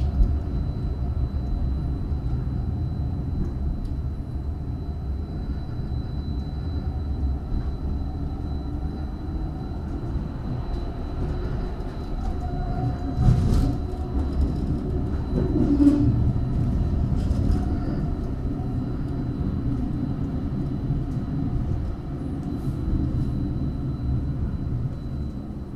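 Tram running along its rails, heard from inside: a steady low rumble of wheels and running gear with a faint steady high whine. It gets louder twice, about 13 and 16 seconds in, as another tram passes alongside.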